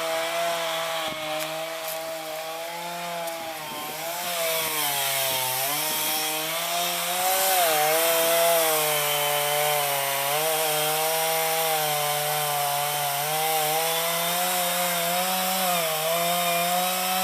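Chainsaw running and cutting timber during tree felling. Its engine pitch sags and picks back up several times as the chain bites into the wood, with the deepest dip a few seconds in.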